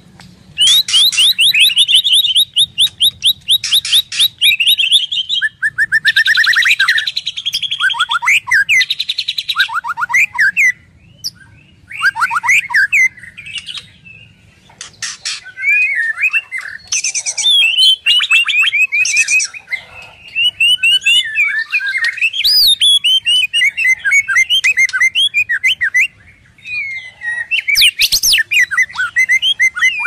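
White-rumped shama singing continuously: loud, varied phrases of rapid repeated notes, whistles and fast trills, with short pauses between bursts.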